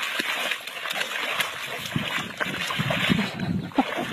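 A dog rolling on its back in a muddy puddle, with wet mud sloshing and splashing irregularly under it.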